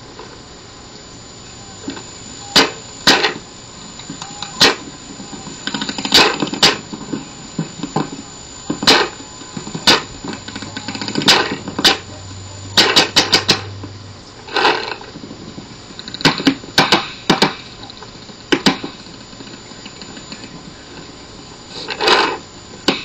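Paintball markers firing during a game: sharp single pops at uneven intervals, with a quick string of about five shots a little past the middle.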